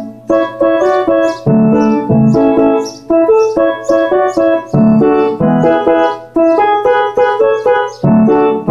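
Electronic keyboard with a piano-like voice, played with both hands: a repeating run of quick melody notes over low bass notes from the left hand.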